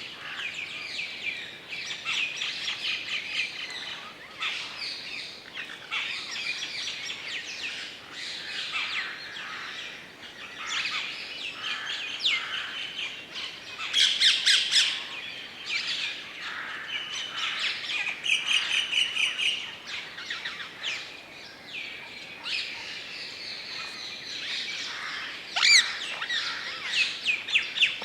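Several birds singing and chirping together in dry deciduous woodland: overlapping trills and rapid chirps go on throughout, with louder calls about halfway through and a sharp falling call near the end.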